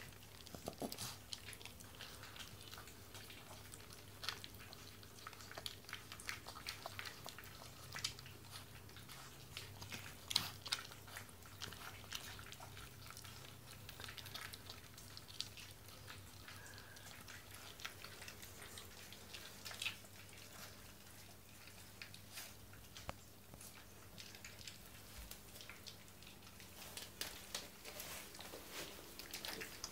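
Five-week-old puppy chewing and crunching dry kibble from a stainless steel bowl, in irregular quick clicks and crunches, over a low steady hum.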